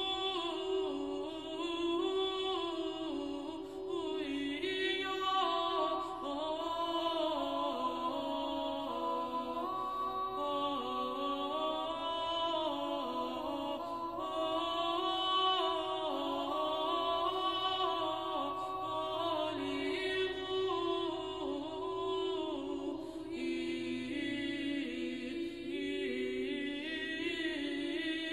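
Unaccompanied Orthodox church chant: voices sing long, drawn-out melodic lines over a steady lower held note, with no words made out.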